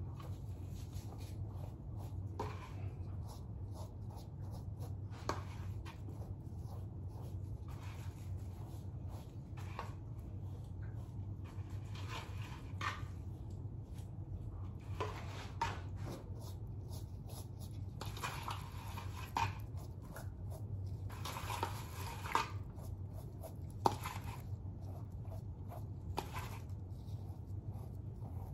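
Hands working the hair of a mannequin head: intermittent soft rustling and handling noises with a few sharp clicks, the longest rustles about two-thirds of the way through, over a steady low hum.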